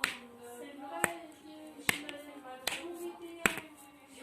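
Slippers struck on a hard floor to imitate high-heeled shoes walking: five sharp clacks at an even walking pace. Soft music plays underneath.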